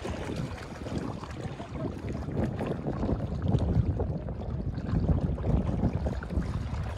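Wind buffeting the microphone in gusts, growing stronger about two seconds in, over small waves lapping at the rocky lake shore.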